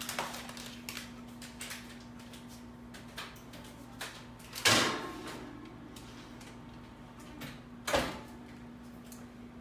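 A kitchen oven door opened and shut as a baking pan of cookie dough goes in: a few small clicks, then two loud metal knocks about three seconds apart, over a steady low hum.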